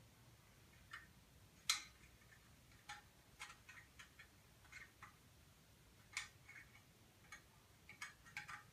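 Faint, irregular clicks and taps of brass trumpet parts being handled as the slides and valves are fitted back into the instrument, with one sharper click about two seconds in.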